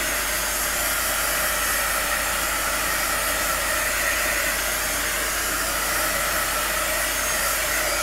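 Heat embossing wand running steadily: a constant rush of blown air with a faint fan whine, played over wet acrylic pouring paint to bring up cells.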